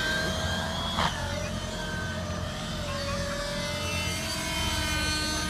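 Radio-controlled helicopter in aerobatic flight: the whine of its motor and rotors wavers up and down in pitch as it manoeuvres, with one brief sharp burst about a second in.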